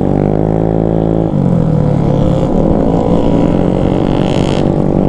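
Motorcycle engine accelerating, its pitch climbing, dropping sharply at a gear change about a second in, then climbing again.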